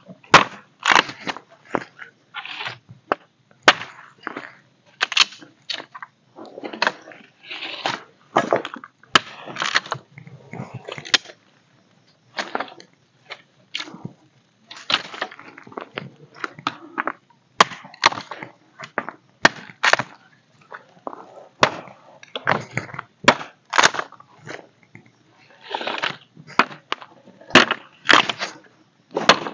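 Bamboo poles being cut and broken: irregular sharp cracks and knocks, several a second at times, with rustling and scraping between.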